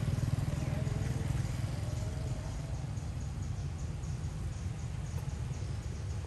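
Steady low rumble, with faint wavering calls in the first two seconds or so.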